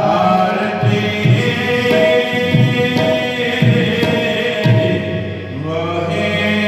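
Devotional shabad singing: a man's voice chanting over sustained harmonium tones, with tabla strokes keeping time. The tabla drops out about five seconds in while the voice and harmonium carry on.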